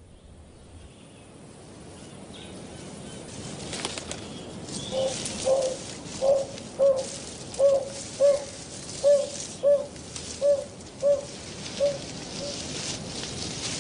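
Narina trogon calling: a series of about a dozen low, soft hoots, a little under two a second. The hoots start about five seconds in and fade out near the end.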